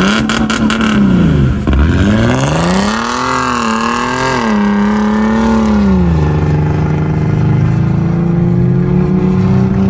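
Car engine revving up and down, climbing and dropping twice, then running at a steadier, lower speed from about six seconds in.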